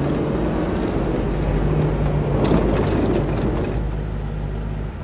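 A vehicle engine running with a steady low hum, swelling louder for a moment about halfway through.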